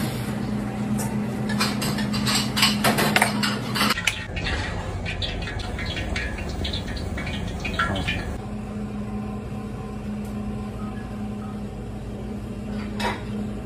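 Kitchen prep clatter: quick clicks and clinks of utensils and dishes over a steady low hum. The hum drops out for a few seconds in the middle while a wooden spoon stirs in a frying pan, and the last few seconds are quieter.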